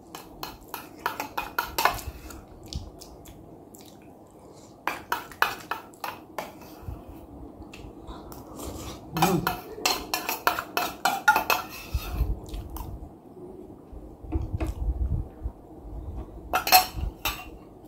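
Metal spoon clinking and scraping against a small stainless-steel bowl as food is scooped out, in several short runs of quick clicks.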